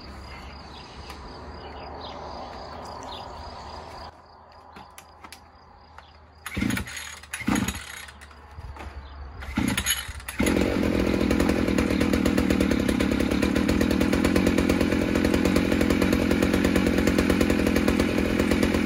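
Villager BC1900S 51.7 cc two-stroke brush cutter engine being pull-started for its first run. Three short pulls on the recoil starter, then the engine catches about ten seconds in and keeps running steadily.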